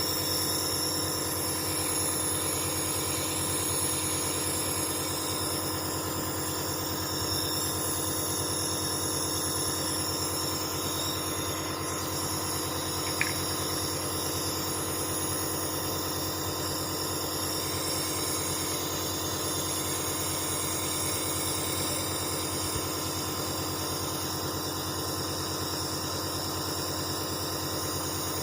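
Dr Trust Bestest 401 compressor nebulizer running steadily while nebulizing medication, an even mechanical hum whose noise level is moderate and normal for the machine. One brief faint click about halfway through.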